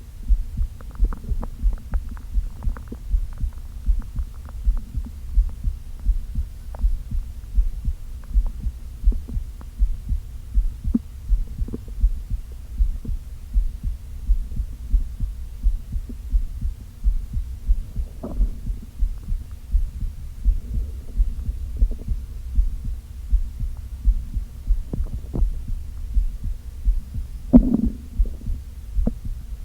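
Close-up recording of a hungry, empty stomach. A steady, low rhythmic thumping runs throughout, with faint clicks and occasional short gurgles, the loudest gurgle coming near the end.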